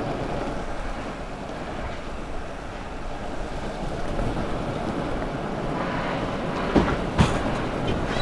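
Longboard wheels rolling over asphalt: a steady rumbling road noise, with two sharp knocks in quick succession about a second before the end.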